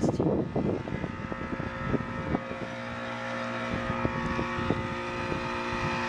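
Early-2000s Bryant heat pump outdoor unit in defrost mode, its reciprocating Bristol compressor running with a steady, really loud hum. Wind buffets the microphone with irregular thumps.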